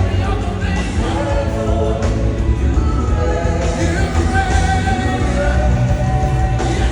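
Live gospel worship music: sung vocals over a band with a heavy, steady bass.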